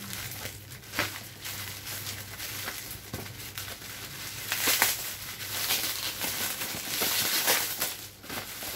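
Black plastic wrapping on a parcel crinkling and rustling as hands pick and pull at it to open it, with a sharp tick about a second in and louder spells of rustling about halfway through and near the end.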